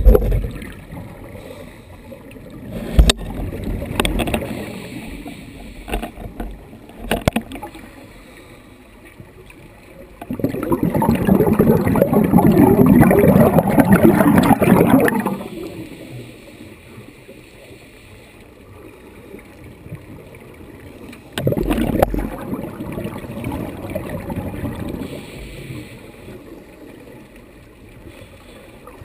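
Scuba regulator exhaust bubbles heard underwater, two long rushes of exhaled bubbles, the louder one about ten seconds in and the other a little past twenty seconds, with quieter bubbling between. A few sharp knocks come in the first seven seconds.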